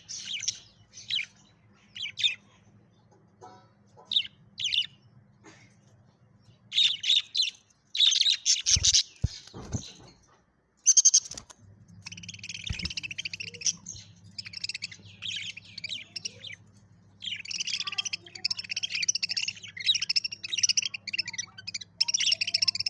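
Pet budgerigars chirping and chattering: scattered short high chirps at first, then a near-continuous stream of warbling chatter through the second half. A faint low hum runs underneath.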